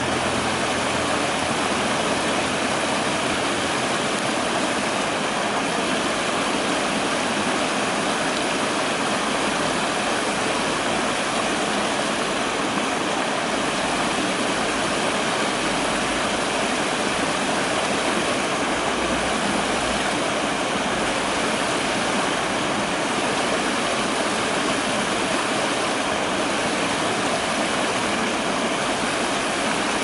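Mountain stream water pouring in a small cascade over boulders into a pool: a steady rushing splash of water with no break.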